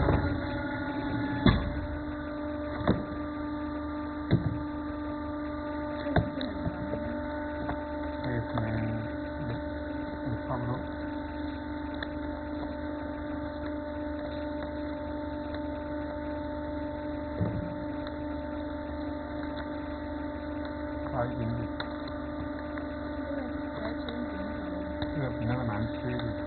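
A 30-ton hydraulic die-cutting press running with a steady electric hum from its motor. Occasional sharp knocks and clicks sound as the cut EVA foam sheet and puzzle pieces are handled, most of them in the first several seconds.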